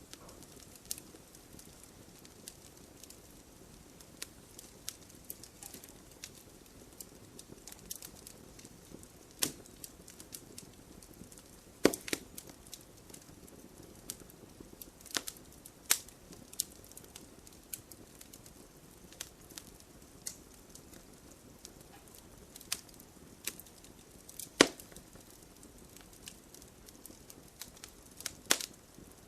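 Wood campfire crackling: irregular sharp pops and snaps, several of them much louder, over a faint steady rush of the burning fire.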